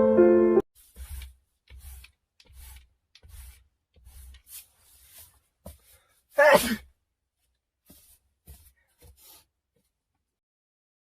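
A person sneezes once, loudly, about six and a half seconds in, the pitch dropping through the sneeze. Before it comes a run of faint, short breathy sounds.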